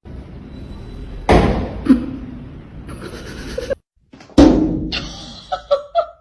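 Two loud thuds, like something heavy slamming, about three seconds apart, each trailing off into a noisy rumble.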